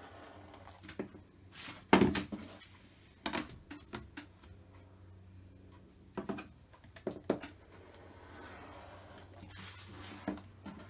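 Rotary cutter and clear acrylic ruler handled on a cutting mat while trimming a fabric-paper page backed with felt. A series of sharp clicks and knocks comes as the tools are set down and moved, the loudest about two seconds in. A softer scraping near the end is the cutter's blade rolling along the ruler edge.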